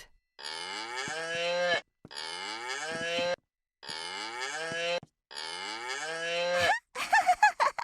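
Animal-sounds toy playing a recorded cow moo four times in a row, the same moo each time, about a second and a half long and rising in pitch. A few short clicks follow near the end.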